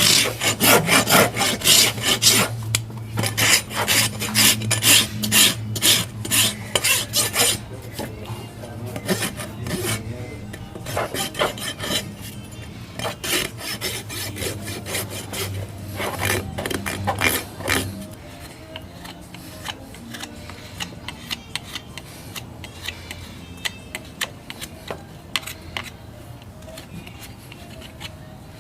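Farrier's rasp filing a horse's hoof in repeated strokes. The strokes thin out and grow quieter after about eighteen seconds, leaving only faint scrapes.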